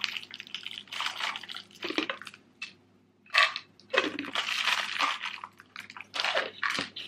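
Herbalife plastic shaker cup being handled and taken apart: a run of scratchy rustling and scraping with clicks and knocks of plastic parts, the sharpest click about three and a half seconds in.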